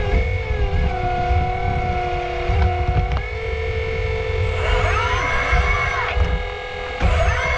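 Hydraulic pump of a 1/8-scale RC excavator whining as it works. The pitch glides up and down with the load, and a low rumble runs underneath.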